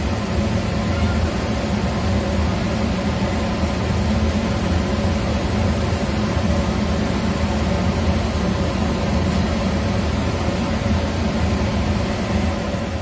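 Steady mechanical hum with an even hiss, unchanging throughout.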